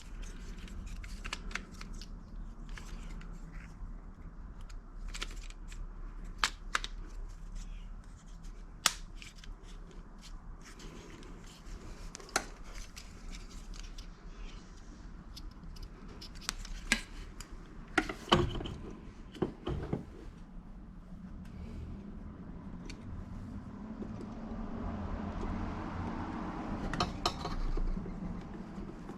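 Scattered clicks, ticks and light scraping of a Torx screwdriver and a small torx screw being worked against the plastic housing of a truck door lock actuator, the screw not catching its thread because it is cross-threaded; a longer rubbing, scraping stretch comes near the end. A faint steady hum runs underneath.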